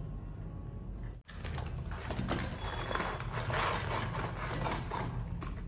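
Food being emptied out of paper and cardboard packaging onto a wire rack: rice shaken from a paper bucket, then fried chicken pieces tipped from a cardboard box, with crinkly rustling of the packaging. The sound cuts out briefly about a second in, and the rustling is busiest in the second half.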